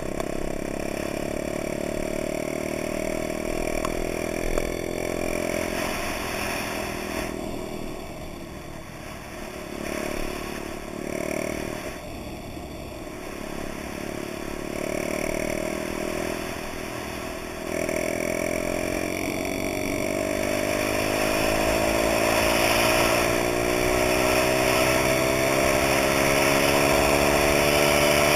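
Dax minibike's small four-stroke single-cylinder engine running under way, heard close up from the bike itself. The engine note eases back a couple of times in the first half, then from about two-thirds in its pitch rises steadily as it accelerates harder.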